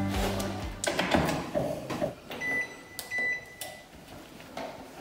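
Industrial front-loading washing machine being shut and set going: scattered knocks and clunks from the door and controls, then two long electronic beeps, one straight after the other, about two and a half seconds in.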